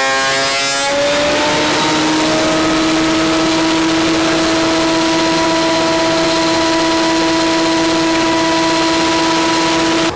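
Loud woodworking power tool's electric motor: the cutting noise stops about a second in and the motor's whine climbs in pitch, then holds steady as it runs free with no load.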